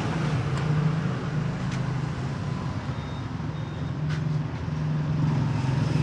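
Steady low rumble of road traffic running in the background, with a few light clicks scattered through it.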